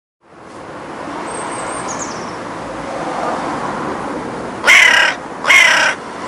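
Hooded crow cawing twice, two harsh calls a little under a second apart, over a steady background hiss. A faint high chirp comes about a second in.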